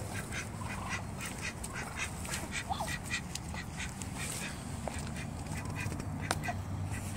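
Ducks quacking in a quick series of short calls, about three a second, as they gather at a tub of mealworms.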